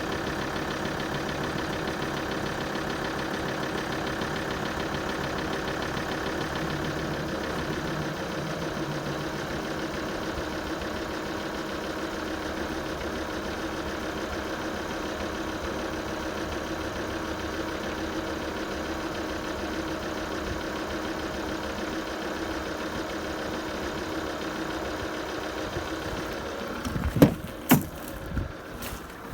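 Alfa Romeo 159 2.4 JTDm five-cylinder diesel idling steadily with the noise its owner calls weird. Near the end, a few loud sharp knocks.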